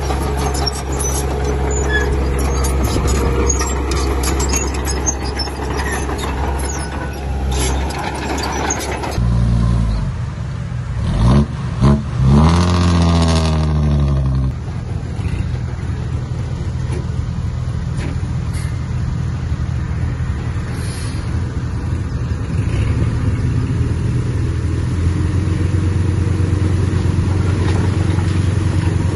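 Diesel engines of earthmoving machinery running steadily, with a clatter of clanks over them for the first third. A little before the middle an engine revs up and falls back, then settles into steady running.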